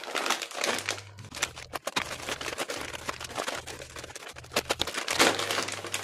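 A plastic courier mailer bag crinkling and rustling as it is handled and slit open with a snap-off utility knife, in irregular crackly bursts.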